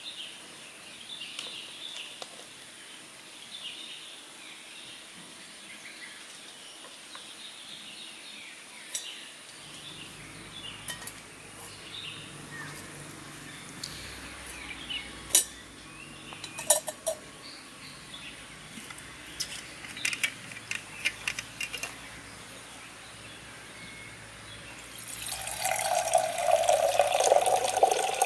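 Water poured from a bottle into a stainless steel kettle, a loud splashing pour starting about 25 seconds in. Before it come scattered light metallic clinks and clanks as camping coffee gear, the kettle and a canister gas stove, is handled, with faint bird and insect chirps in the first part.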